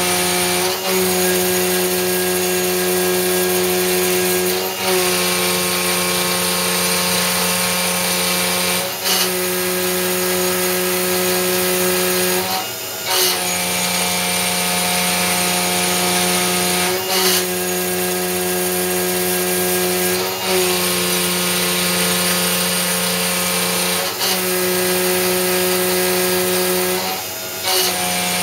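A 5/8-inch two-flute end mill on a CNC-converted IH RF-45 mill cuts a metal plate at about 6,000 rpm and roughly 90 inches per minute, making a steady whining tone. The tone breaks briefly about every four seconds as each pass ends and the cutter steps over for the next.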